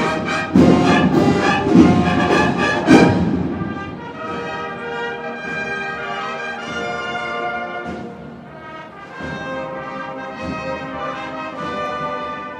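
Cornet-and-drum band playing a Holy Week processional march. For about the first three seconds cornets and drums play loudly together, then the drums drop back and the cornets hold softer sustained chords.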